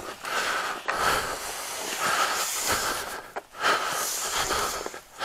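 A man breathing hard and close to the microphone, three long noisy breaths, with his jacket rustling.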